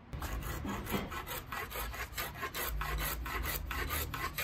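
Small block plane cutting a chamfer along the edge of a softwood board, in quick, repeated short shaving strokes, several a second.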